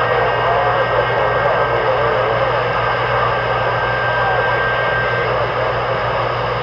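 CB radio receiver hissing with static, with a distant station's faint, wavering voice just showing through the noise over a steady low hum.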